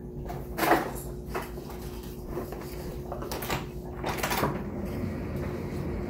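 A handful of separate knocks and thuds as someone walks off and works a door, over a steady low hum.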